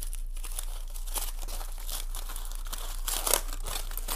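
Aluminium foil crinkling as hands unwrap a foil-wrapped taco: a run of irregular crackles, with a louder crackle a little after three seconds in.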